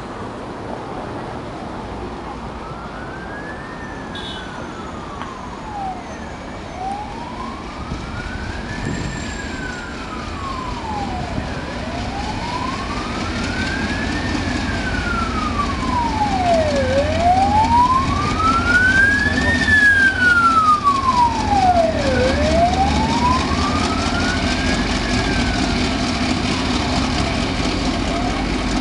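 An emergency vehicle's siren wailing, slowly rising and falling five times, about every five seconds. Under it, the engine rumble of a DF11 diesel-electric locomotive grows louder as the locomotive pulls away with its train.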